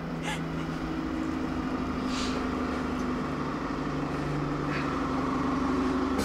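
City bus engine running with a steady low hum that grows louder, with a few short faint hissy sounds over it.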